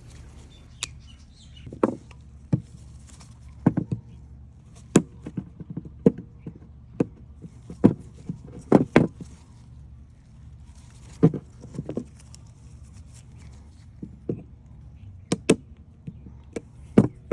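Irregular sharp clicks and knocks of a small wrench and hand tools on the metal parts of a battery connector being fitted, about twenty taps spread unevenly.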